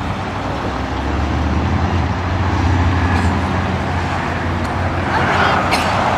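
Road traffic passing on a nearby street: a steady low rumble of cars, with one vehicle passing louder about five seconds in.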